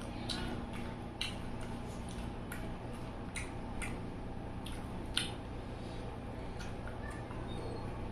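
Close-up eating sounds: short wet clicks and smacks of chewing, coming irregularly about once a second, over a steady background hum.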